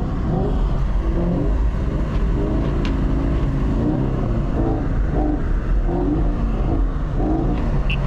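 2019 Chevrolet Camaro SS 1LE's 6.2-litre V8 running steadily, its pitch rising and falling with light throttle.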